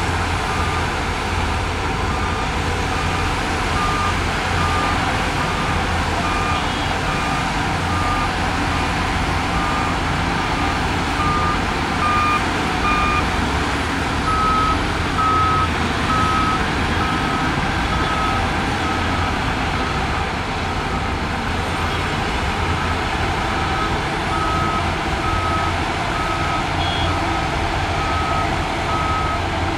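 Heavy earthmoving machinery: a steady diesel engine rumble with a reversing alarm beeping evenly, a little over once a second. About halfway through, the beeps shift to a slightly higher pitch, as a second machine's backup alarm takes over.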